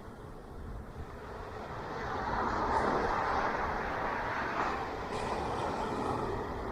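Ocean waves breaking and washing onto a beach, the surf swelling about two seconds in and staying full.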